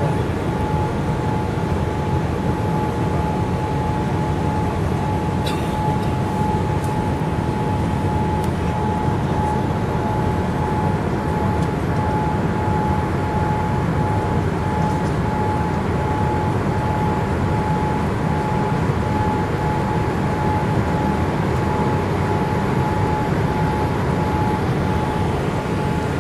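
Jet airliner cabin noise during the climb after takeoff: a steady, deep roar of engines and airflow with a steady high whine running through it.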